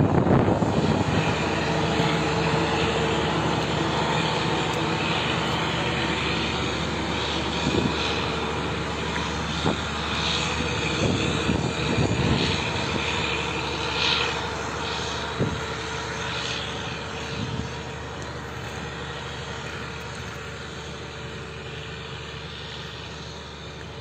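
Steady drone of a propeller aircraft's engines, slowly fading as it moves away, with a few knocks on the microphone partway through.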